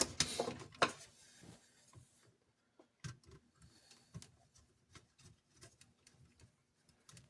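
Faint, scattered clicks and taps of small metal parts being handled as the old light-bulb fitting is taken off a metal Lionel passenger car, with a few sharper clicks in the first second.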